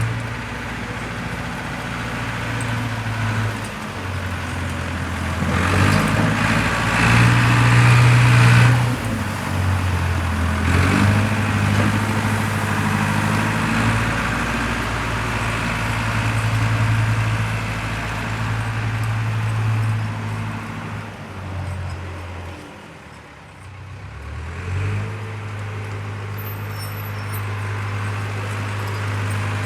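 Caterpillar 910 wheel loader's diesel engine running, its speed rising and falling as the machine is worked. It revs up twice in the first third, drops low about three quarters of the way through, then settles back to a steady run.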